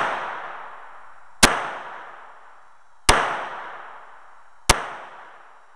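Glock 17 9 mm pistol firing three shots, about a second and a half apart, each sharp crack trailing off in a room echo.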